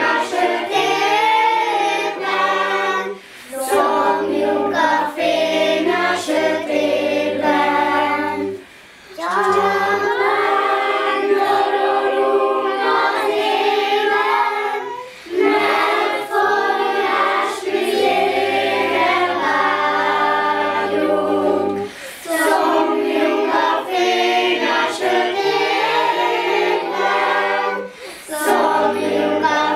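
A mixed group of women, a man and children singing a song together, in phrases of a few seconds with short breaks between them.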